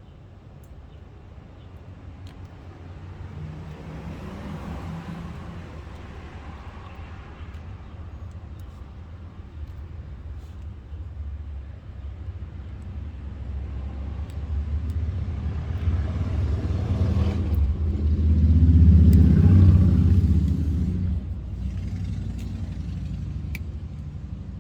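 Low rumble that builds gradually, is loudest about three quarters of the way through, then eases off.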